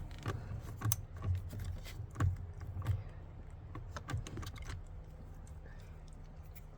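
Light, irregular metallic clicks and taps of a socket wrench with an 8 mm socket and extension working a steering-wheel airbag retaining screw loose. The clicks thin out after about five seconds.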